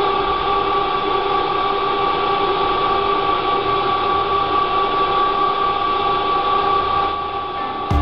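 Motor-driven paddle mixer running: a steady mechanical hum and hiss with several constant whining tones, easing off slightly just before the end.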